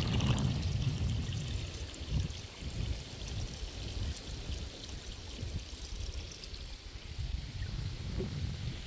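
Water trickling, with wind buffeting the microphone in a low, uneven rumble.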